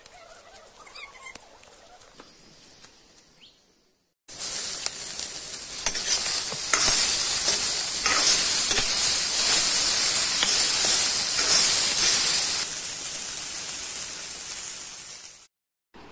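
Corn kernels sizzling loudly in hot oil in a wok as they are stir-fried with green chillies and onion. The sizzle starts suddenly about four seconds in, after faint rustling of leaves being handled, and cuts off abruptly just before the end.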